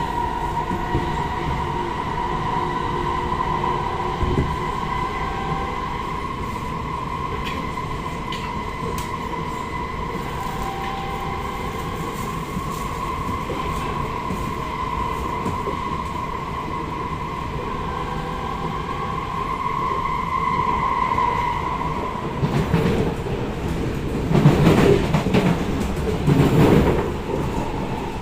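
SMRT C751B train in motion, heard from inside the car: a steady high whine from its traction equipment over wheel-on-rail running noise. About three quarters of the way through the whine fades and two loud swells of heavy rumbling from the wheels and track take over.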